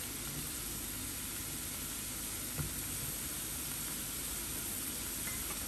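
Onions frying in oil in a pan: a steady, even sizzle, with one faint tap about two and a half seconds in.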